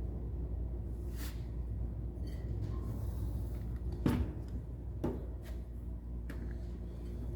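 A few separate knocks and clacks of wrenches and metal toolbox parts being handled, the loudest about four seconds in, over a steady low hum.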